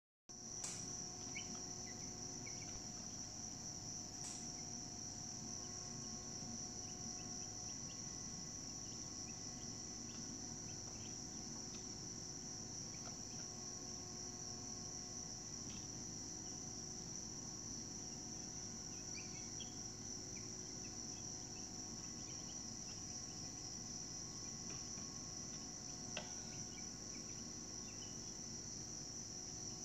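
Steady, high-pitched chorus of insects, likely crickets, droning without a break, with a few faint ticks or taps here and there.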